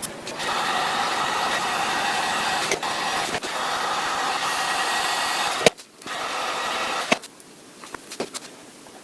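Handheld heat gun blowing with a fan whine while softening screen adhesive; it cuts out briefly a little before six seconds in, comes back, and stops about seven seconds in. A few sharp clicks follow near the end.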